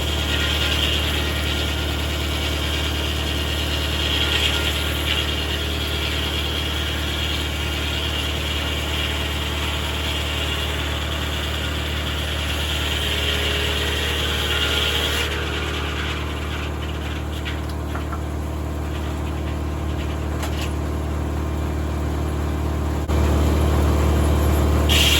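Tractor engine running steadily to power a 1950 Corley circular sawmill, with a higher hiss over it that drops away about two-thirds of the way through. The engine gets louder near the end.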